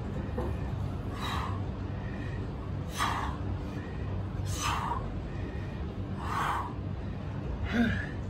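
A man breathing out in short, sharp puffs, five of them about a second and a half apart, in time with his dumbbell goblet squat reps.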